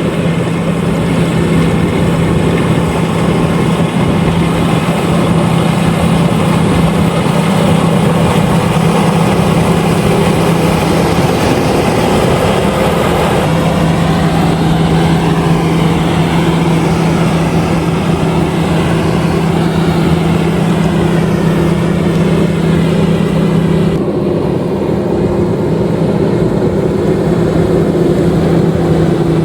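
LOVOL RG130EVO rice combine harvester running steadily while harvesting, its engine and threshing machinery making a continuous loud hum. A strong steady tone in the hum drops out briefly about eleven seconds in, then returns.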